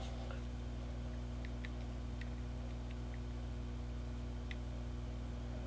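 A steady low electrical hum, with a few faint light ticks as the small laser-cut wooden truss frame is handled and pressed together.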